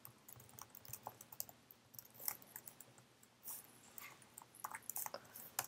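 Typing on a computer keyboard: faint, irregular keystrokes with short pauses between bursts.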